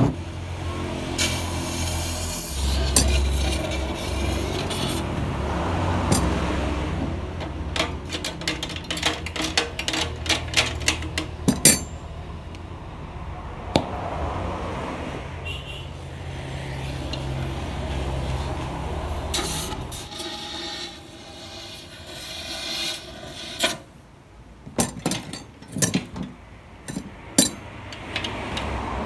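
Metal clinking and tapping in quick runs of sharp strikes, from tools worked on an exhaust muffler. A steady low engine-like hum runs underneath and fades out about twenty seconds in.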